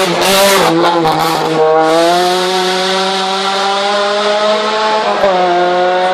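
A Volkswagen Golf rally car's engine at high revs, accelerating hard up the hill. Its pitch climbs steadily and drops briefly at gear changes, about two seconds in and again about five seconds in. A rush of noise comes in the first two seconds as the car passes close by.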